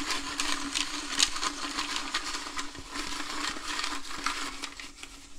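Small letter and number pieces rattling and clicking against one another as they are stirred and shaken inside a pitcher, a dense run of quick clicks.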